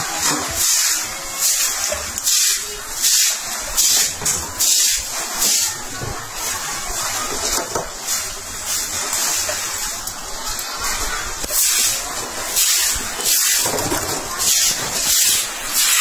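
Water thrown from buckets splashing onto a wet concrete street, a loud uneven hissing splash that surges again and again.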